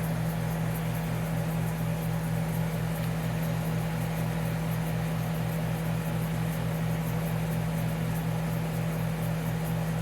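Montgomery Ward dehumidifier running: its compressor gives a steady low hum with a slight regular throb, under the whoosh of its fan.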